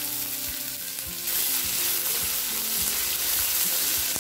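Chopped onion sizzling in hot oil in an aluminium kadai, stirred with a wooden spatula; the sizzle gets louder about a second in.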